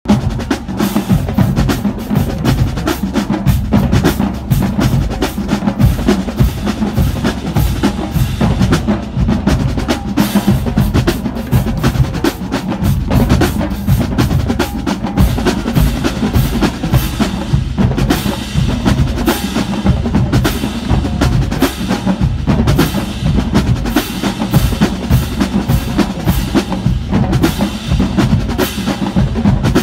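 Marching drumline playing a cadence, with snare drums and bass drums striking together in a loud, continuous rhythm.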